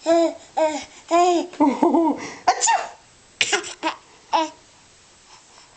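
Baby laughing in a quick run of short bursts. A second, briefer burst of giggles comes about three and a half seconds in.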